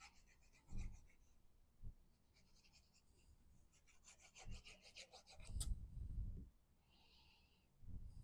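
Faint, quick scratchy rubbing as the plastic tip of a liquid glue bottle is drawn in zigzags across cardstock, with a few soft knocks of the card being handled.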